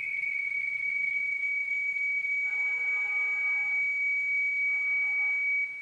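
A steady high-pitched whistle-like tone held for several seconds, cutting off shortly before the end, with a fainter cluster of lower tones sounding twice in the middle.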